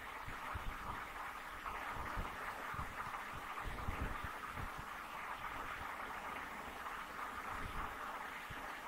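Xerox WorkCentre 5775 copier booting up after a restart, its cooling fans giving a steady whir, with irregular low thumps underneath.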